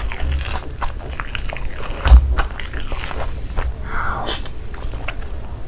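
Close-miked eating: biting into and chewing a Cheetos-coated cheese ball, then a mouthful of masala Maggi noodles, with many wet mouth clicks and smacks. A low thump about two seconds in is the loudest moment.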